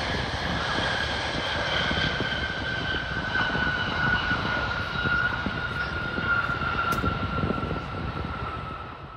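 Jet engines of a FedEx three-engine McDonnell Douglas widebody freighter rolling out after touchdown: a steady whine whose pitch slowly falls as the engines spool down, over a low rumble. Wind buffets the phone microphone throughout, and the sound fades out at the very end.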